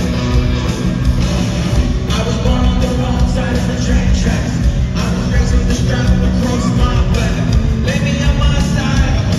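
Live rock band playing loudly through a concert PA: electric guitar, bass and drums, with a singer's voice at times.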